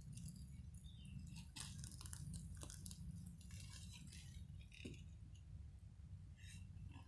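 Faint crackling and ticking of a charcoal fire in a clay stove, with an egg-coated sticky-rice cake on a wooden skewer grilling over the coals; the crackles come thickest about two seconds in and again near the end, over a low steady rumble.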